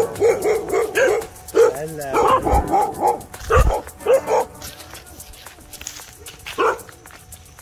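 A dog barking and yelping in a quick run of short calls, then falling quiet, with one more bark near the end; two low thumps sound midway.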